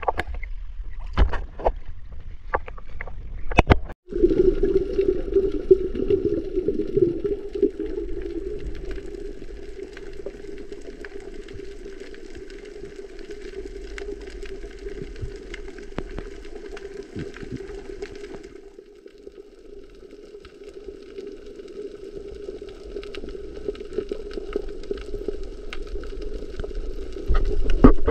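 Sea water splashing and sloshing at the surface for the first few seconds. After a sudden break about four seconds in, the sound turns to muffled underwater ambience: a steady low hum with faint crackling above it.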